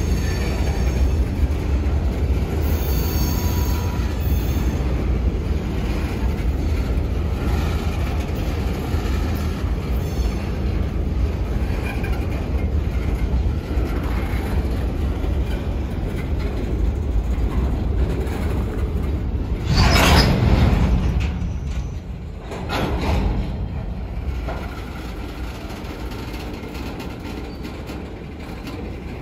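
Loaded coal hopper cars of a freight train rolling past, a steady low rumble of steel wheels on rail with faint high tones coming and going. About twenty seconds in a louder surge of noise rises and falls, then the rumble eases.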